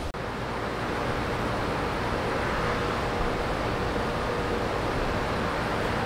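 Steady outdoor background rush, even and unbroken, of the kind made by distant road traffic or wind, with a brief dropout right at the start.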